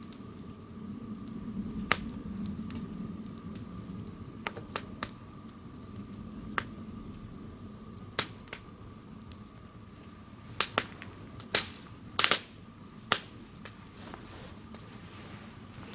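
Swedish torch (a split log burning from the top) crackling, with sharp, irregular pops of burning wood, the loudest few coming close together about two-thirds of the way in.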